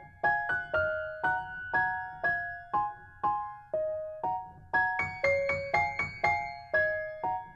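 Background music: a light melody of separate ringing notes, about two a second, each fading away.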